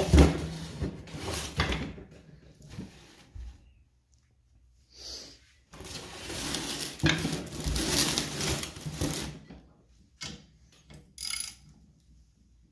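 Metal clanking and scraping as a socket wrench with an extension is worked against a stuck bolt on an old reel mower's metal frame. There is a sharp knock at the start, a longer stretch of clattering about six to nine seconds in, and a few light clicks near the end.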